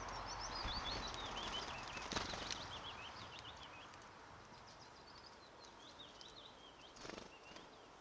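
Small garden songbirds chirping in quick runs of high notes, in the first few seconds and again near the end, with a few brief soft knocks, the loudest about two seconds in.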